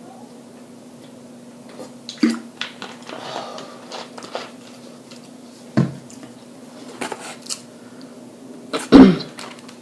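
Eating and table noises: fried food and dishes being handled, with scattered clicks and a few sharp knocks, the loudest near the end. A steady low hum runs underneath.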